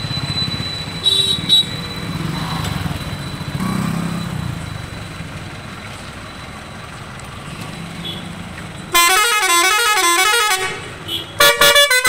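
Multi-tone musical air horn on an Eicher 10.50 truck sounding over the low hum of the running engine. About nine seconds in it plays a loud warbling tune for under two seconds, and near the end it gives a run of quick, separate blasts.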